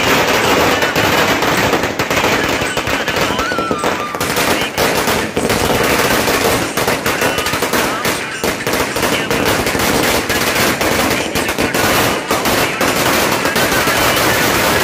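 A long chain of firecrackers going off at ground level, a rapid, unbroken crackle of bangs.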